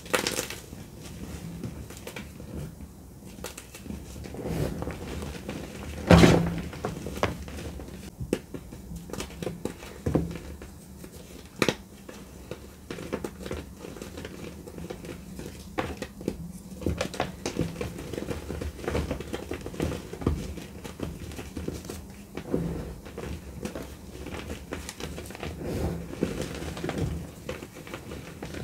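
Blocks of dry gym chalk being crushed and crumbled in bare hands: a dense run of crunching with many sharp snaps, the loudest about six seconds in.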